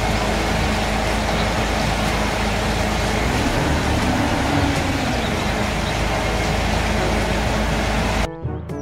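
Mercedes-Benz concrete mixer truck's diesel engine running steadily while the truck stands still, a heavy low rumble with a steady hum, cutting off abruptly near the end.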